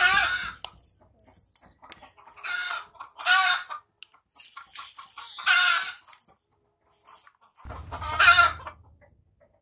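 A rooster crowing four times, each crow a loud, strained multi-note call, spaced a couple of seconds apart.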